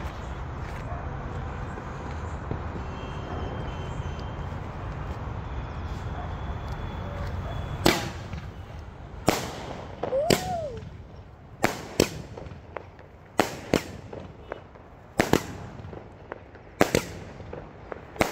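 A 30-shot sky shot firework cake firing. For the first eight seconds there is only a steady low background noise; then sharp bangs begin, about ten of them at irregular intervals of roughly a second.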